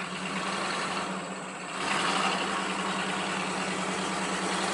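Truck engine running steadily under load as it pulls a rope tight on a tree, growing louder about two seconds in.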